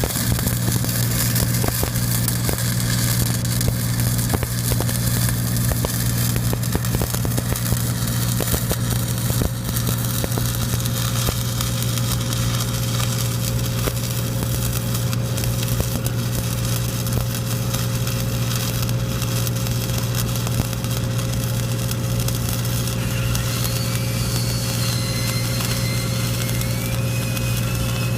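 Stick-welding (shielded metal arc) arc crackling steadily on steel pipe, over the steady drone of an engine-driven welding machine running.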